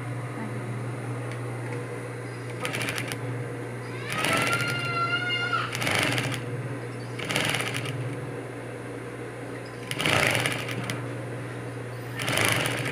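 Industrial sewing machine: its electric motor hums steadily while the needle stitches in about six short runs as the pedal is pressed and let off. A short high-pitched cry or squeal rises, then holds, about four seconds in.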